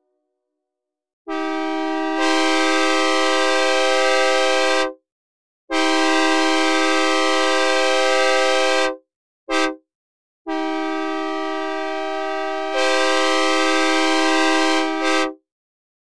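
Synthesized recreation of a Nathan K3LA three-chime locomotive horn sounding the long, long, short, long grade crossing signal. The first and last long blasts grow louder partway through as another note joins the chord.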